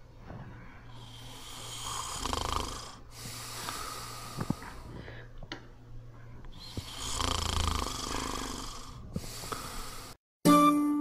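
A sleeping boy snoring in two long breaths about five seconds apart, over a steady low hum. Near the end the sound cuts off and a short, bright chime rings out.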